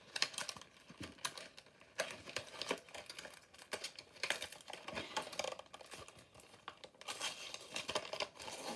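Plastic and cardboard toy packaging being torn open and crinkled by hand, a dense run of irregular crackles, rustles and small clicks.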